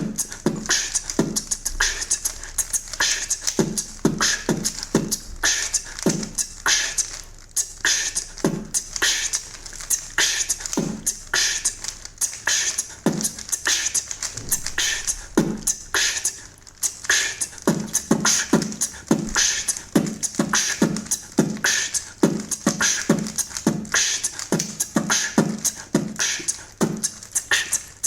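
Solo human beatboxing: a continuous rhythm of vocal kick drums, hissing hi-hats and snares. It is a little breathy and uneven, performed while holding a plank.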